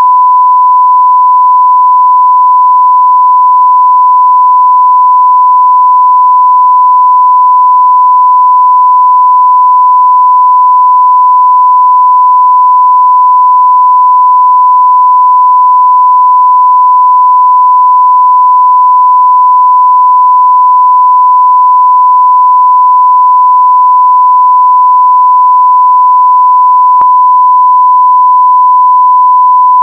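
A continuous censor bleep: one steady pure tone at about 1 kHz, held unbroken at full loudness.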